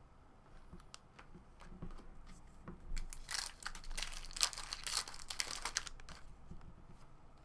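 A trading-card pack's foil wrapper being torn open and crinkled, with light handling clicks first and a dense stretch of crackling from about three to six seconds in.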